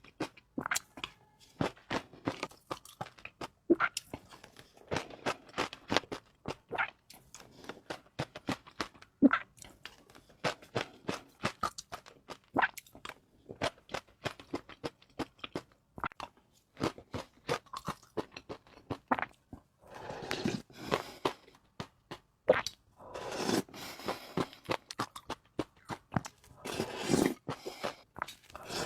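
Close-miked eating: food chewed with a rapid run of sharp crunches, with a few longer noisy stretches from about twenty seconds in.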